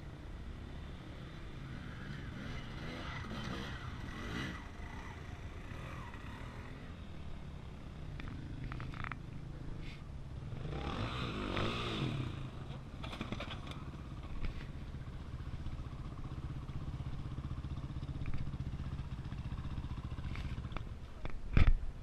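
Dirt bike engine running under load on a rock climb, revving up and down in pitch about halfway through. A loud sharp knock comes near the end.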